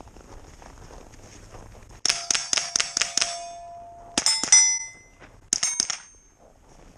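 Rapid rifle fire at steel targets, each hit ringing out: a fast string of about eight shots, then two short bursts of three or four.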